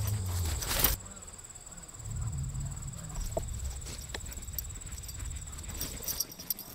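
Field insects trilling steadily in a high, thin chorus over a low rumble, with one sharp knock just before a second in.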